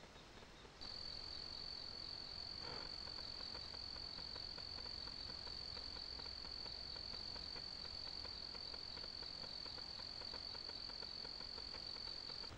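An insect trilling steadily on one high pitch, starting suddenly about a second in. Before it, a fainter insect call pulses on a slightly lower pitch.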